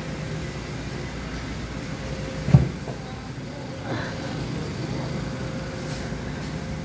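Steady low background hum of a convenience store interior, with a single short low thump about two and a half seconds in and a faint click about a second later.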